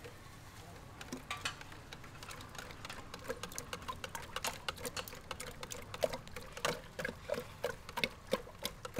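Wire whisk beating egg yolks in a plastic jar, its wires clicking rapidly against the jar's sides. The clicking starts about a second in and gets louder toward the end.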